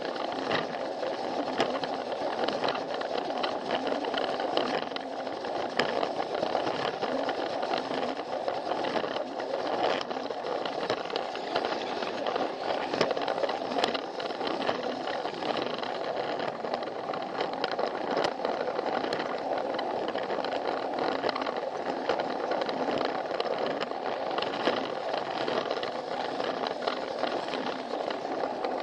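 Plarail toy train running along plastic track: the small battery motor whirring steadily, with the wheels rattling and ticking in many small, irregular clicks. It is heard close up from a camera riding on the train.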